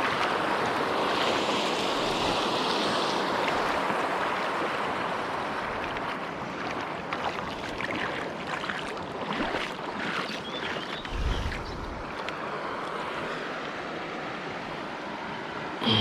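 Steady rush of flowing creek water, with a few light clicks and a brief low thump about eleven seconds in.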